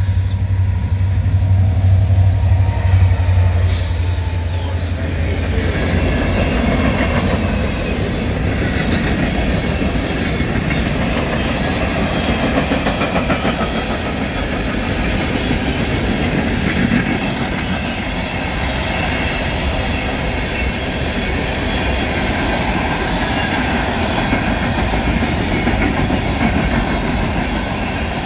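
Freight train passing close by. Its two EMD diesel locomotives, a CN SD70M-2 and an IC SD70, go by with a deep engine rumble in the first few seconds. The freight cars then roll past with a steady wheel-on-rail clatter.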